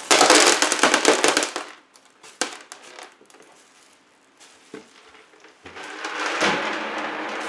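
Bubble wrap crinkling and crackling as it is handled around a potted orchid: a loud burst of crackling for the first couple of seconds, a few scattered crackles, then steadier rustling near the end.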